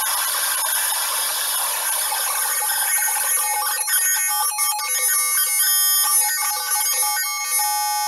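Digital white noise generator built from a CMOS linear feedback shift register (4006 shift register with 4070 XOR gates): a hiss for about the first half, which then breaks up and settles into a steady buzzing tone with many overtones. A finger near a resistor is inducing interference into its 40 kHz clock, and as the finger draws away the output changes from noise to tone.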